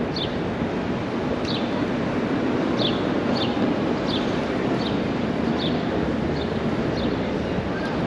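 Steady city-street din of traffic and crowd in Times Square. Short, high chirps sound through it about every half second.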